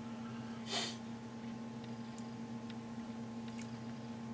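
Quiet room with a steady low electrical hum. A short hiss comes about a second in, and a few faint clicks follow as a plastic model-kit sprue is handled.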